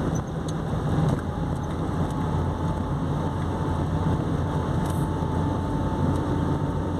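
Steady engine and road noise of a car driving, heard from inside the cabin. A faint thin steady whine joins it about a second in.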